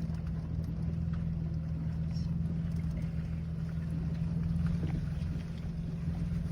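Jeep Wrangler engine running at a steady low drone, with a few faint clicks and rattles over it.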